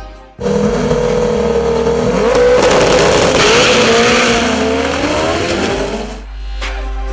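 A turbocharged Honda drag car's engine held at high revs, its pitch wavering a little over a hiss of noise. It cuts in sharply about half a second in and falls away about six seconds in.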